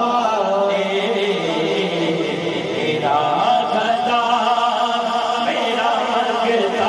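A male naat reciter singing into a microphone, drawing out long, wavering held notes.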